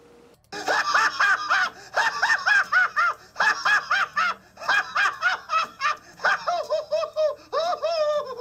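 High-pitched laughter in quick 'ha-ha-ha' runs of about five or six beats, broken by short pauses, with a few longer drawn-out notes near the end.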